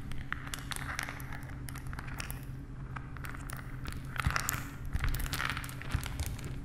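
Crumbling rubble sound effect: scattered clicks and crackles of falling debris, with two swells of hiss in the second half, over a low steady hum.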